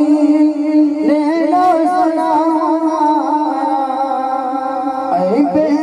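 A man sings a drawn-out devotional chant into a microphone through a loudspeaker, his voice wavering in long melismatic phrases over a steady held drone. About five seconds in, the voice slides up in pitch.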